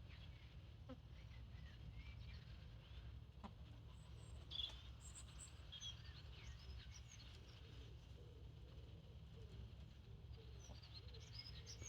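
Faint, scattered high bird chirps and short trills over a low, steady rumble, the chirps gathering from about a third of the way in and again near the end.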